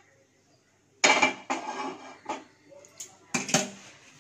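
A metal frying pan clanking as it is set down on a gas stove's burner grate: a loud clank about a second in, then a few lighter knocks and scrapes.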